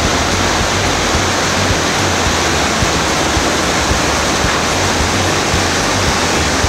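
Loud, steady rush of a waterfall, heard close to the falling water.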